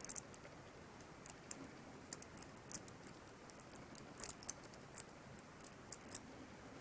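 Faint, irregular small metallic clicks and ticks from a metal watch band's links and small hand tools being handled while a link is separated from the band.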